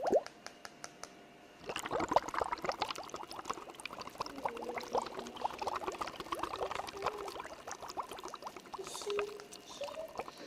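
Water trickling and dripping into water: a dense, irregular patter of drops with small bubbly plinks, starting after a second or two of near quiet.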